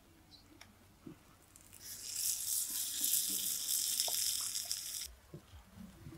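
Water running for about three seconds, starting about two seconds in and stopping abruptly.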